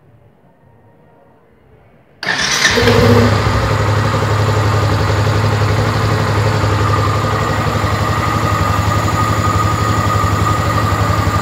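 Yamaha XTZ 150 Crosser's single-cylinder engine starting about two seconds in, catching at once with a brief rise in revs, then idling steadily. This is its first start after the clutch side and rewound stator were reassembled.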